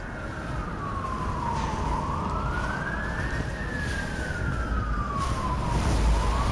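Emergency vehicle siren sounding a slow wail: one tone sliding down, back up, and down again over about six seconds, starting to rise once more near the end, over a low steady rumble.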